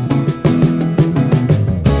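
Background music: plucked and strummed guitar over a steady beat.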